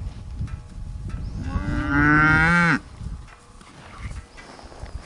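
Hereford bull bellowing: one long, loud, low call starting about a second and a half in, lasting just over a second and cutting off abruptly.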